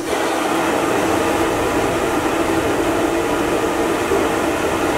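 High-flame gas burner running with a steady, loud rushing noise, its flame licking up the sides of an empty iron wok as the wok heats.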